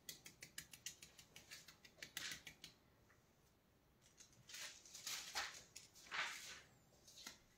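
Faint crackling of thin metal leaf being pressed and rubbed onto a tacky wall by hand: quick rapid ticks over the first few seconds, then a few longer rubbing strokes near the middle and end.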